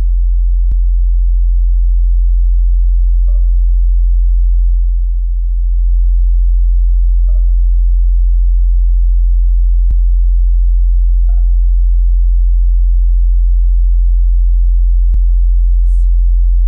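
A synthesized drone on the soundtrack: a loud, deep, steady low tone. A short ringing note recurs about every four seconds, and there are a few faint clicks.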